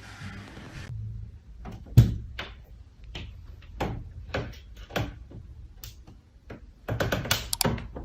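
A door thuds and rattles as a pet pushes at it wanting to come in. One loud knock comes about two seconds in, then irregular knocks and clicks that bunch up near the end.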